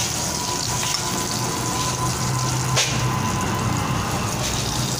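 Spiced eggplant slices sizzling in hot refined oil in a kadhai as they are turned over: a steady frying hiss, with one sharp knock a little under three seconds in.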